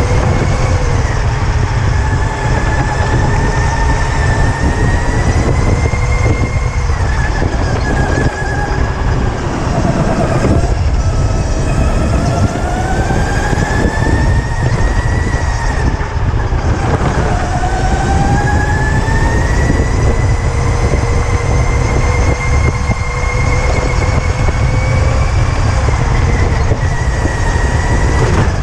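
Electric go-kart's motor whining while it is driven hard, its pitch falling as the kart slows and climbing again as it speeds up, over a heavy low rumble from the kart on the track.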